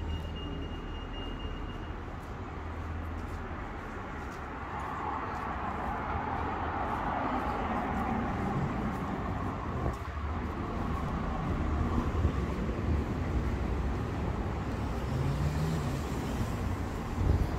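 Road traffic noise from cars passing on a town street: a steady low engine and tyre rumble, with one vehicle swelling past in the middle and the traffic growing louder near the end.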